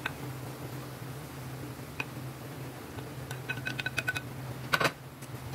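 A wooden spoon tapping against a metal plate as shredded chicken is pushed off into a frying pan: a quick run of light ringing clinks about three and a half seconds in, then a louder clatter near the end. A steady low hum runs underneath.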